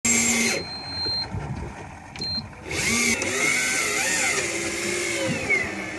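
Small electric motor, likely an electric fishing reel winding in line, whining from about three seconds in with a pitch that slowly rises and falls as the load changes. Before it there are two short, steady high-pitched tones, the first lasting under a second.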